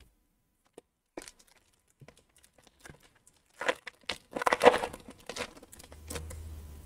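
Foil wrapper of an Upper Deck hockey card pack crinkling and tearing as it is ripped open by hand, with a few light clicks first and the loudest crackling about four seconds in.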